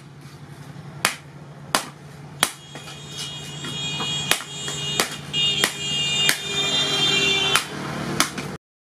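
Hand hammer blows on a red-hot steel hoe blade resting on a steel post anvil: about nine sharp strikes, one every second or less. From about three seconds in, music with ringing tones fades in and grows louder under the blows. All sound cuts off suddenly just before the end.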